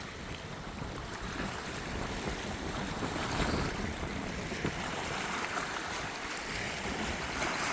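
Wind gusting across the microphone with a low, uneven rumble, over the steady wash of choppy lake water.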